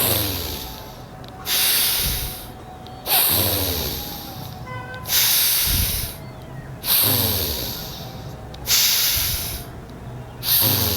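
A person breathing deeply and audibly in a slow pranayama rhythm (Sahaj Pranayam No. 3): alternating inhales and exhales, each a rush of air that starts suddenly and fades, about every one and a half to two seconds, making roughly three and a half full breaths.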